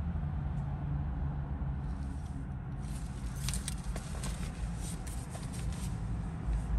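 Rustling and scattered light clicks and taps in a car cabin over a steady low rumble. In the last moment a much stronger deep rumble comes in as the Subaru Levorg's engine starts.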